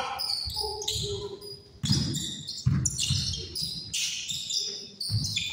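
Basketball dribbled on a hardwood gym floor: a run of bounces, roughly one a second and not quite even, with sneakers squeaking on the court between them.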